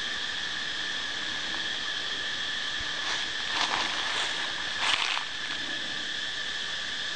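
Steady, high-pitched drone of insects, two even tones held throughout. Two brief rustling scrapes break in, one a little after three seconds and one about five seconds in.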